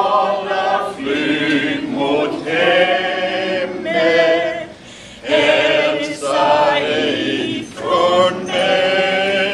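A small mixed group of men and women singing a song together without accompaniment, in held phrases with short breaks between them.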